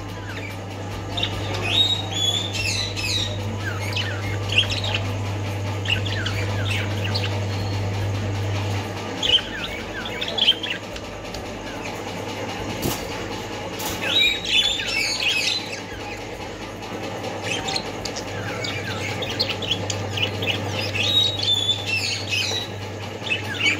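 A small flock of caged budgerigars chirping and chattering, with short squawks, many quick calls overlapping. A steady low hum runs beneath them for much of the time.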